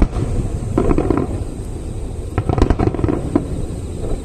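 Aerial firework shells bursting in a finale barrage: a continuous low rumble of explosions, with clusters of sharp crackling bangs about a second in and again from about two and a half seconds in.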